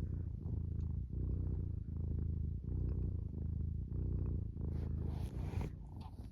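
Domestic cat purring steadily, the low rumble swelling and easing about once a second with its breathing. A short burst of noise comes about five seconds in, and the purring fades near the end.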